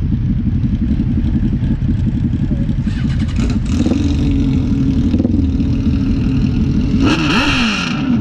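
Motorbike engines running with a steady low rumble, then revved up and down a couple of times near the end.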